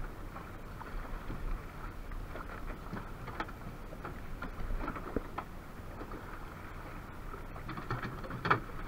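Wind and water around a small fishing boat at sea, with scattered light knocks and splashes and a sharper knock near the end.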